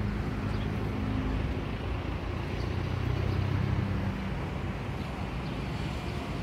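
Road traffic: a steady rumble of passing vehicle engines, with a low engine hum standing out near the start and again around the middle.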